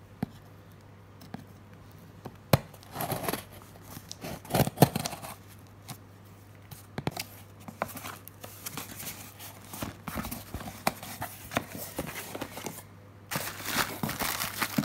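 Packing tape on a cardboard shipping box being slit with a blade and the flaps pulled open, with sharp clicks and scraping of cardboard. Near the end, a steady crinkling of plastic wrapping as the wrapped bottles inside are handled.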